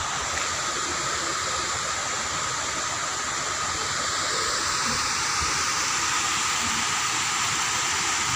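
Steady rushing of water, rising a little in level about four seconds in.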